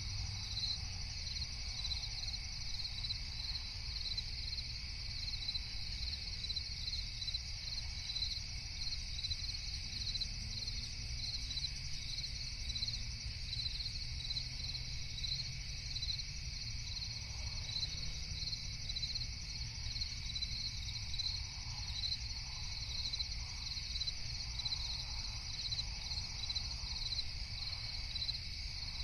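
Crickets chirping in a steady, regularly pulsing chorus over a low, even rumble of night-time forest background.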